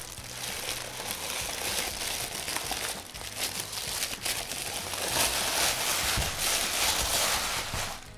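Thin wrapping sheet crinkling and rustling in quick crackles as it is pulled off a statue by hand. The crackling stops abruptly at the end.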